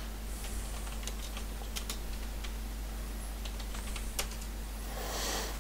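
Computer keyboard typing: irregular, sparse key clicks as a short command is entered, over a steady low electrical hum.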